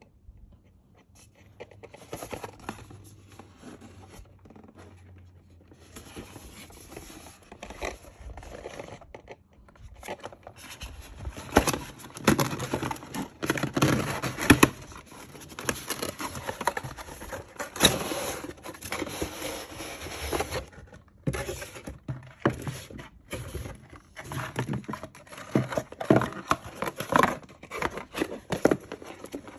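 Cardboard toy packaging being handled and opened by hand: irregular scraping, rustling and sharp clicks as the box flaps and insert are worked and the action figure is taken out, busiest and loudest around the middle.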